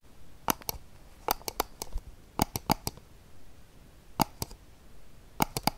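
Irregular sharp clicks, some in quick pairs, over faint room hiss.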